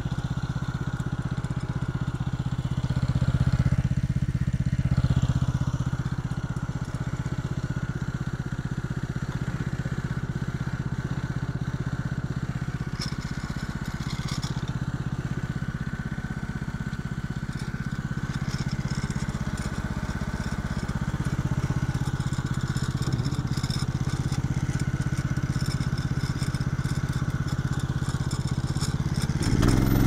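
Kohler Command engine on a Norwood LM29 band sawmill idling steadily, warming up after a cold start without priming. It gets louder and changes pitch right at the end.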